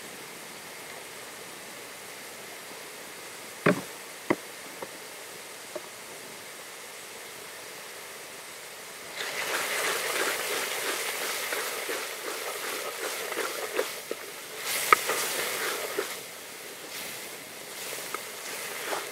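A wooden spatula scraping and stirring a thick spice paste in a pot, a rasping scrape lasting several seconds from about halfway through. Before it, two sharp knocks.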